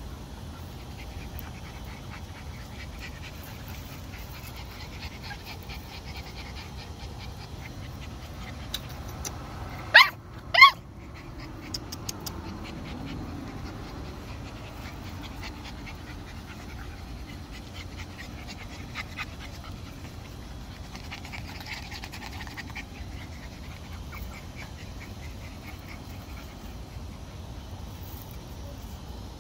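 Alapaha Blue Blood Bulldog puppies playing and panting. About ten seconds in come two sharp, high-pitched puppy yelps less than a second apart.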